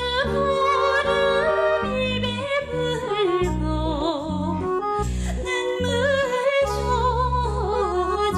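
A woman singing a Korean song with heavy vibrato, accompanied by a piano accordion playing sustained chords and an electric bass guitar playing a low, moving bass line.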